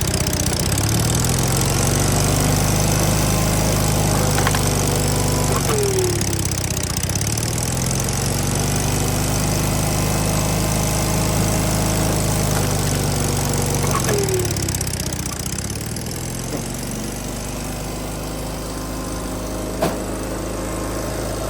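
Log splitter's small engine running steadily. It bogs down briefly three times, at the start, about six seconds in and about fourteen seconds in, each time with a short falling squeal, as the hydraulic ram loads it while splitting. There is a sharp click near the end.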